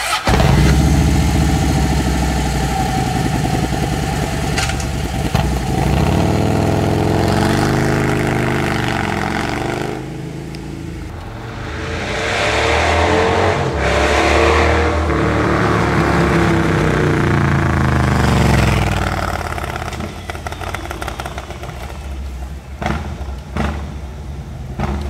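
Harley-Davidson Road King's air-cooled Twin Cam 103 V-twin through a Kerker full-system exhaust. It comes in suddenly and is revved up and down in long sweeps, then blipped in short bursts near the end.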